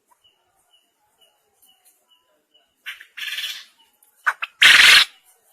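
Quail calling: soft high peeps about twice a second, then twice a phrase of short notes ending in a loud, harsh burst, the second louder than the first.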